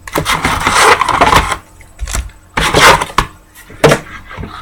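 Trading-card packs being pulled out of a cardboard hobby box: a few bursts of rustling and scraping of the pack wrappers against the cardboard.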